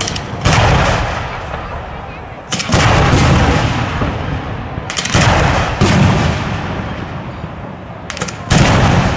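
Aerial firework shells going off in a display: about six loud bangs, irregularly spaced, each followed by a long rolling echo that dies away over a second or two.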